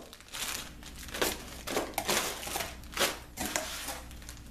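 Clear plastic zip bag crinkling and crackling in the hands as a drill press arbor is handled inside it, in irregular crinkles.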